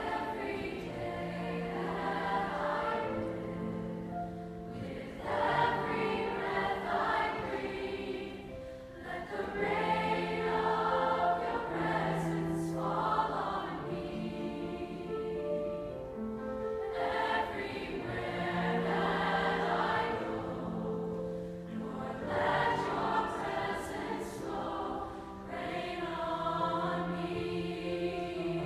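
A mixed youth choir singing a slow sacred choral song in sustained phrases, with short breaks for breath between them, accompanied by grand piano.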